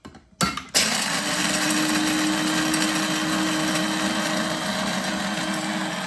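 KitchenAid BCG111ER blade coffee grinder starting with a click as its lid is pressed down, then its motor running steadily with a constant hum as the blade grinds coffee beans in the metal canister.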